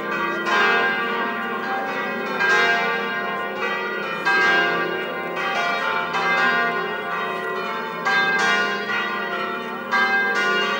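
Church bells pealing: several bells struck again and again, their long ringing tones overlapping.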